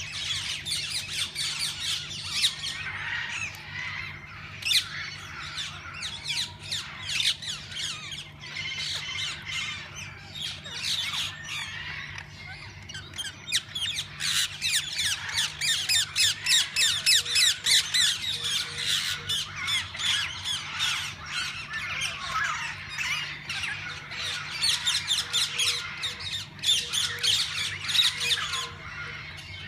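A flock of parakeets squawking and chattering, many rapid, overlapping high calls at once, growing busiest about halfway through.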